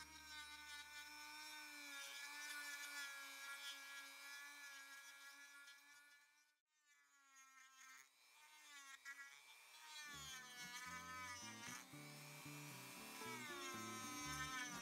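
Dremel 3000 rotary tool running faintly with a carving burr on wood: a thin, high whine that wavers in pitch as the burr bites and eases. It drops out briefly about halfway through and comes back. Background music sits underneath and grows fuller in the low end from about ten seconds in.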